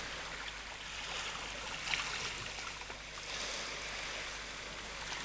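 Sea water lapping and splashing, a steady hiss that swells slightly about two and three seconds in.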